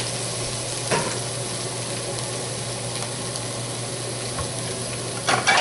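Food frying in hot oil in a pan, sizzling steadily, with a light knock about a second in.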